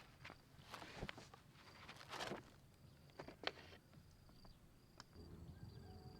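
Faint scattered knocks and rustles of handling or footsteps, with insects chirping steadily in the background.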